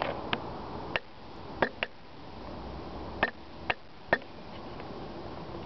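About seven short, sharp clicks at irregular intervals over a steady outdoor hiss, which drops about a second in.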